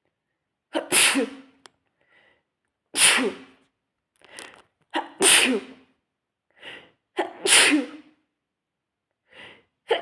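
A person in a sneezing fit: four loud sneezes about two seconds apart, with a short intake of breath before the later ones, and a fifth sneeze starting at the very end.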